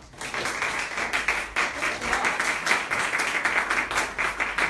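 Audience applause, many hands clapping, starting a moment in and keeping up steadily.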